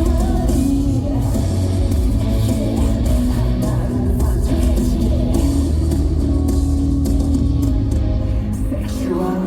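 Live pop-rock song played over an arena sound system, with electric guitar, heavy bass and singing. The deep bass cuts out briefly near the end.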